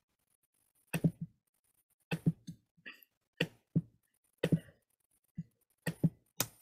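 Typing: about a dozen short, irregular taps, some in quick pairs, as a label is typed into a text box.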